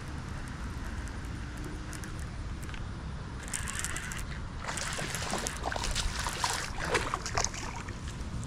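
Water splashing and sloshing in short, irregular bursts from about three and a half seconds in, over a steady low rumble of wind on the microphone.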